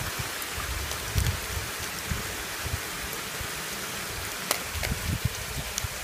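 Steady rushing hiss of Chisuji waterfall, a low, wide fall of many thin streams of water. A few soft bumps and sharp clicks come over it, the clearest click about four and a half seconds in.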